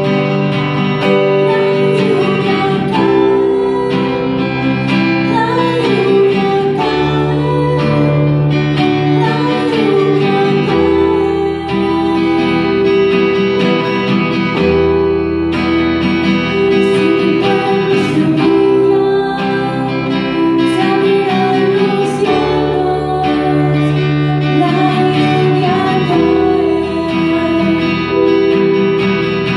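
Live worship-band music: a woman singing a melody over guitar and electronic keyboard accompaniment, with a steady bass line.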